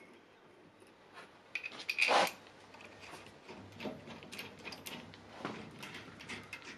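Metal tools and small parts being handled: scattered clinks and clicks, with one louder metallic clatter about two seconds in. Later, small clicks as socket-head cap screws and washers are set into a metal bracket against the band saw's cast iron frame.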